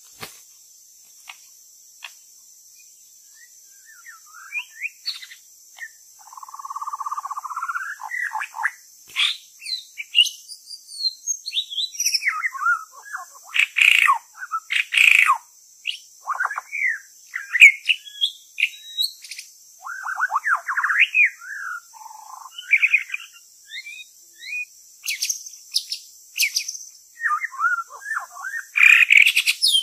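White-rumped shama (murai batu) singing a varied run of rich whistled phrases that sweep up and down, starting a few seconds in and going on in bursts, over a steady high-pitched drone.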